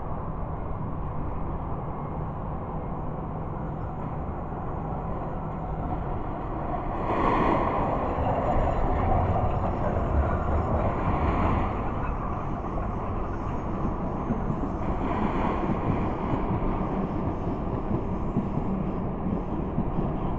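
Distant Hitachi excavator running steadily while it handles scrap metal into a steel skip. The metal clattering is louder for several seconds from about seven seconds in, and again briefly near fifteen seconds.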